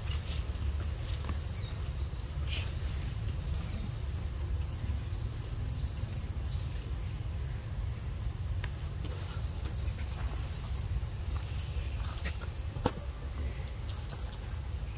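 Insects trilling in one steady high tone, over a low steady rumble, with a few sharp ticks scattered through and one louder tick near the end.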